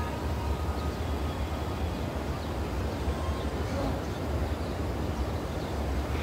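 Open-air crowd ambience: a low murmur of a large crowd over a steady low rumble of wind on the microphone.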